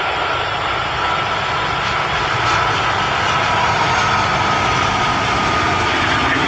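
Airbus A330-343 airliner's Rolls-Royce Trent 700 turbofans during the landing flare and touchdown: a steady jet roar with a high whine that slowly falls in pitch.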